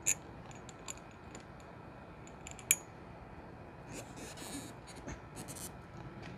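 Small metal clicks and light scraping of screws and an armrest bracket being handled while screws are started by hand. There is a sharp click at the start and another a little under three seconds in, then brief scraping rustles.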